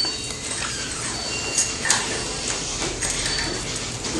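Interior door being opened and handled by its knob, with a sharp click about two seconds in.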